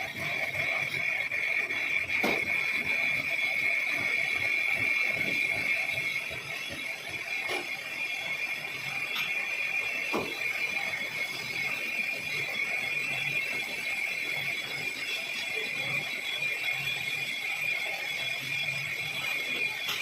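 Lathe cutting a thread in a cast iron nut, giving a steady high-pitched whine, louder in the first six seconds, with a few short knocks.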